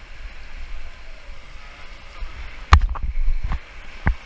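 Steady rush of river water with a low rumble of wind on the microphone, broken partway through by three sharp knocks, the first the loudest.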